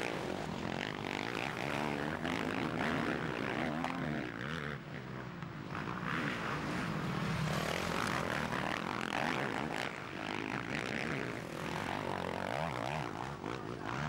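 Several motocross bikes racing past, their engines revving up and falling back again and again as they take the jumps and the turn.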